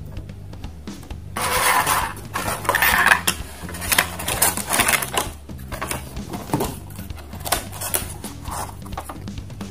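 Plastic packaging tray and cardboard toy boxes being handled and knocked together: rustling and clattering, loudest from about a second and a half to three seconds in, then scattered clicks and knocks.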